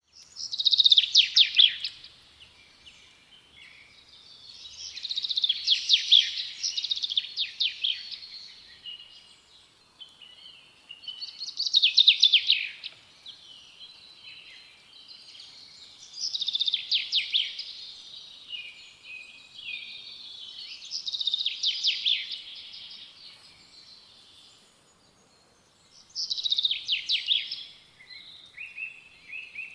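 A finch singing: six high, rapid trilled song phrases of about two seconds each, repeated roughly every five seconds, with softer chirps in between.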